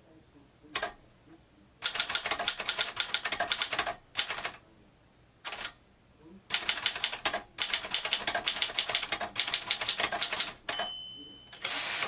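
Typing on a 1949 Moskva Model 2 manual typewriter: rapid runs of typebar strikes in several spurts with short pauses between them. Near the end the margin bell rings once, and the carriage is thrown back to start a new line.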